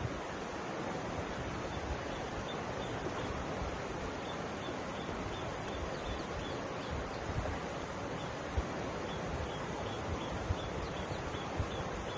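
Mountain river flowing: a steady, even rush of water with low gusty rumbles of wind on the microphone. From about three seconds in, a faint high chirp repeats a few times a second.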